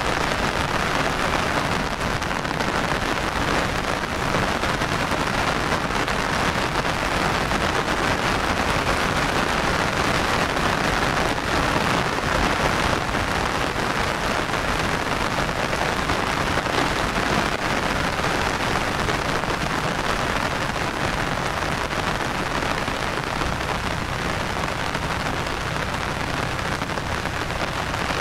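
Rain falling steadily: an even hiss of many drops that holds without a break.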